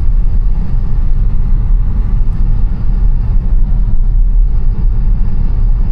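Steady low rumble of tyre and road noise from a Tesla driving on a snowy road; as an electric car it makes no engine sound.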